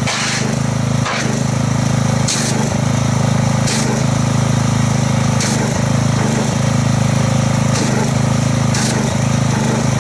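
Pressure washer running steadily while its wand sprays under the surface of a bucket of car-wash soap solution, churning it into foam, with brief splashing hisses now and then.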